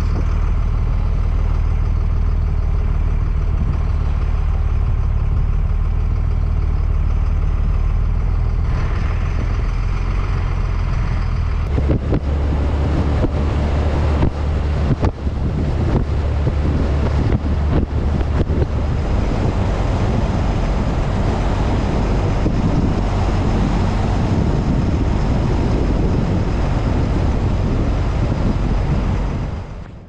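A motor vehicle's engine running steadily with a low drone. About twelve seconds in, a broad rushing noise joins it and grows louder. The sound fades out at the end.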